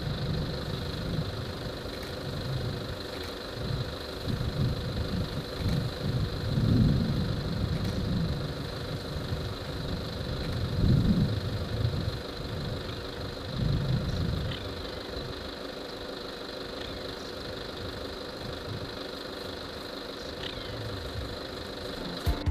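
Vehicle engine idling steadily, with irregular low rumbling swells and a faint steady high tone above it.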